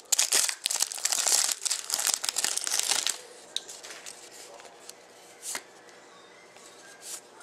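Foil wrapper of a hockey trading-card pack crinkling and tearing as it is ripped open by hand, for about three seconds. After that the sound drops to a few soft clicks.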